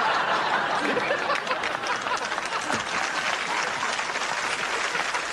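Studio audience applauding, with some laughter mixed in.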